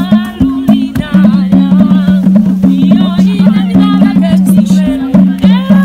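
Music: a song with singing over a steady, rhythmic drum beat and a repeating low two-note figure.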